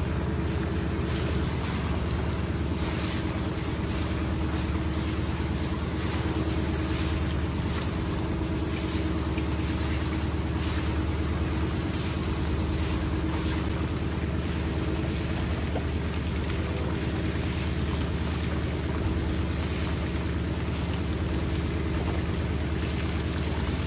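Engine on a floating lift-net fishing boat running steadily at an even speed, with a constant hiss over it.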